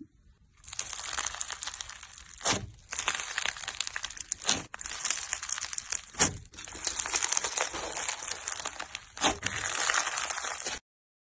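Crunchy green slime being pressed and kneaded by fingers, giving a dense run of crackling and crunching, with four louder pops along the way.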